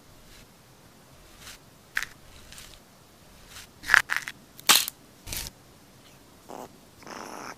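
Eggshell cracking as a large egg hatches: a run of sharp cracks and crunches that grow louder and come quicker about four to five seconds in as the shell breaks open, with a brief softer noise near the end.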